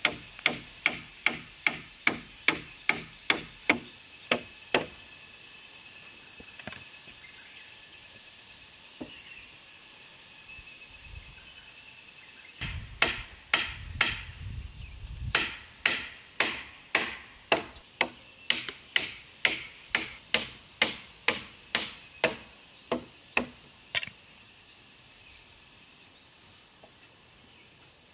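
Nails being hammered into round wooden poles: sharp, evenly paced blows a little more than two a second, stopping about five seconds in, then a second long run of blows from about halfway until a few seconds before the end. A steady high insect hum runs underneath.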